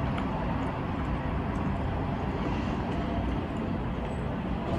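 Steady background noise: an even, constant rush with no distinct events.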